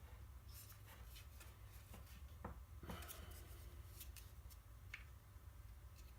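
Near silence: steady low room hum with scattered faint clicks and small knocks of sander parts being handled.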